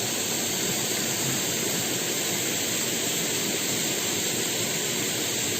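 Steady rushing of a waterfall, an even hiss of falling water with no breaks.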